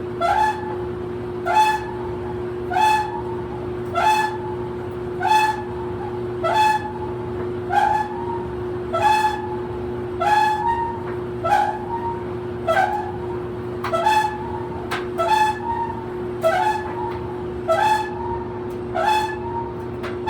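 An old clothes dryer running: the drum squeaks once per turn, about every 1.2 seconds, over a steady motor hum.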